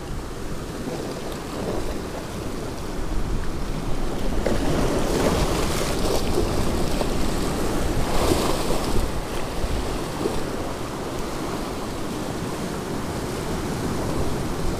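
Sea surf surging and breaking against a rocky shore, with wind buffeting the microphone. The wash swells louder a few seconds in and eases again about two-thirds of the way through.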